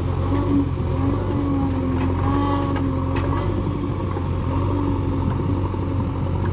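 A heavy diesel machinery engine running steadily, a low drone whose pitch rises and dips slightly.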